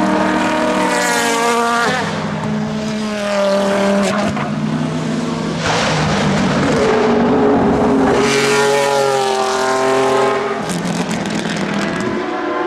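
Race car engines accelerating hard past the track, each climbing in pitch and dropping sharply at the upshifts, about two seconds in and again near the end.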